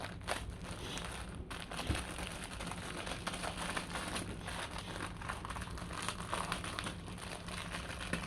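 Paper napkin packaging being crinkled and pulled open by hand: a continuous run of crackling and rustling, over a faint low steady hum.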